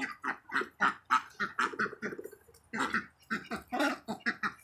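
A flock of domestic ducks quacking and chattering in a quick run of short, low, raspy calls, about four or five a second, with a brief pause in the middle.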